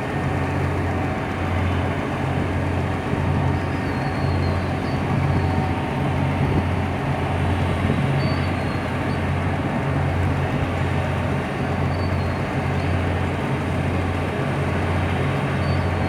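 Tugboat's diesel engine running steadily under load, a deep hum that swells and dips every second or two over a constant mechanical din.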